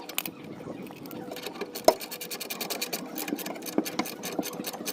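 Exhaust clamp being fitted by hand on the pipe: irregular metal clicks and scraping, with one sharp click about two seconds in.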